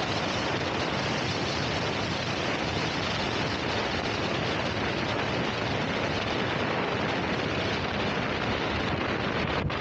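Steady rush of wind and road noise on the microphone of a rider on the move, with no distinct engine note.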